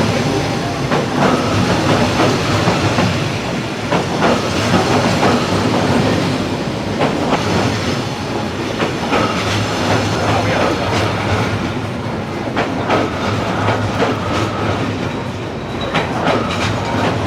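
A train passing at close range along a narrow street: a continuous loud rumble with a steady low drone, and many sharp clicks of the wheels running over the rail joints.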